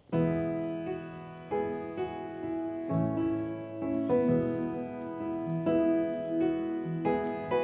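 Background music: a piano playing slow, sustained chords, with notes starting about every half second to second.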